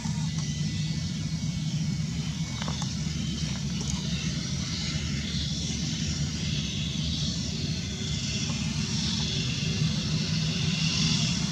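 Airbus A320-family airliner's jet engines running at power as it rolls along the runway: a steady low rumble with a faint hum under a rushing hiss that grows stronger in the second half.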